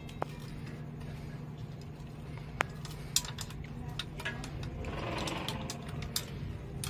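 Metal chain being fed by hand over a sprocket wheel: scattered clinks and clicks of the links, with a short rattle of the chain moving about five seconds in, over a steady low hum.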